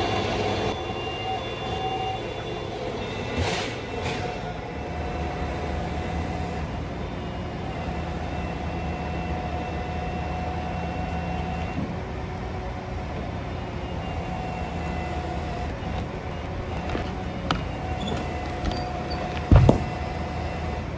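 A large engine runs steadily with several held tones, like heavy machinery on a tree-removal job. A single heavy thump comes near the end.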